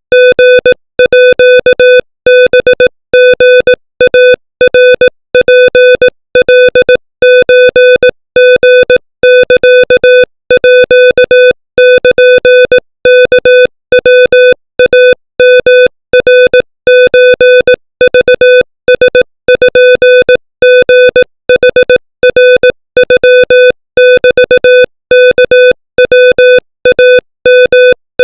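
Morse code sent as a single mid-pitched tone, keyed on and off in short and long beeps at 25 words per minute, spelling out Thai text.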